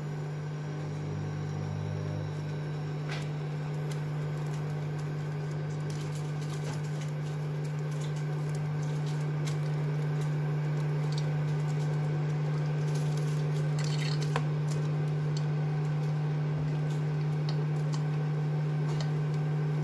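Cooking oil pouring in a thin stream from a plastic bottle into a stainless steel pot, a soft trickle with a few light clicks, over the steady low hum of the induction cooktop that is heating the pot.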